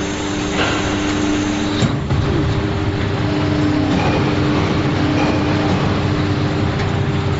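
Injection molding machine running through a mold test cycle: a steady machine hum with several held tones, and a sharp click with a brief change in pitch about two seconds in.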